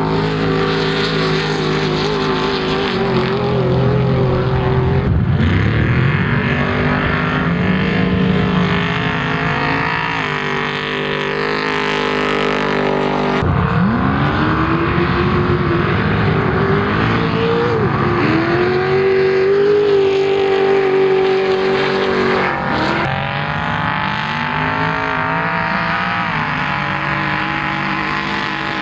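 Off-road race vehicles' engines running hard and revving, the pitch rising and falling as they accelerate and back off. The engine sound changes abruptly twice, about a third and about four-fifths of the way through.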